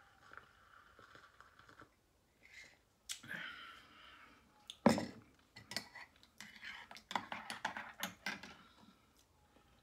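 Handling knocks and clicks. The loudest is a sharp knock about five seconds in, followed by a quick run of lighter clicks and taps.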